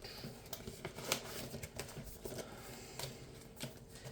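Handling of paper: scattered light rustles, taps and clicks as envelopes and paper savings-challenge sheets are moved about.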